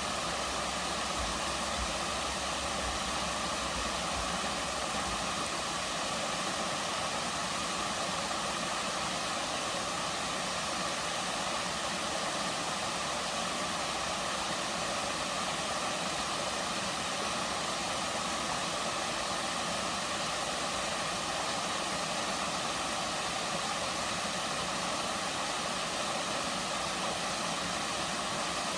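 Waterfall water falling and splashing into its pool: a steady, even rush with no change in level.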